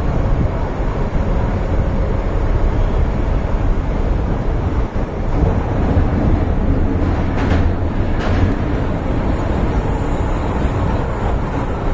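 Inside an MTR Island Line M-Train car running in the tunnel: a steady rumble of the train in motion, with two short knocks about seven and a half and eight seconds in.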